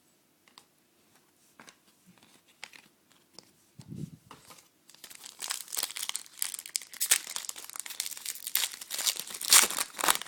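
Trading-card pack wrapper being handled and torn open: a few light clicks and a soft thump, then from about halfway through a steady crinkling and tearing of the wrapper.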